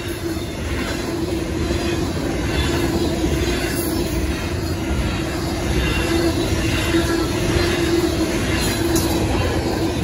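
Double-stack intermodal well cars rolling past at speed through a grade crossing: a steady rumble of steel wheels on rail with faint clicking over the joints and a steady whining tone.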